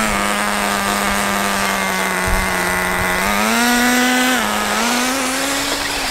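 Nitro RC car engine buzzing at high revs, one steady note with strong overtones. It rises in pitch about three seconds in as the throttle opens, drops back briefly a second later, then climbs again.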